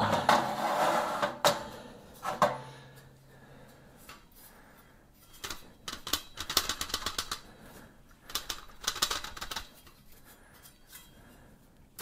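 Sheet-metal clatter as a furnace blower's squirrel-cage wheel is pulled out of its housing and handled: clusters of quick clicks, taps and rattles, the busiest about six and nine seconds in.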